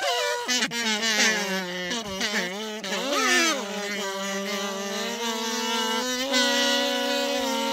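Kazoos playing an instrumental break: a soprano kazoo melody swoops up and down over a steady low bass kazoo note, then settles into long held notes that step up in pitch twice near the end.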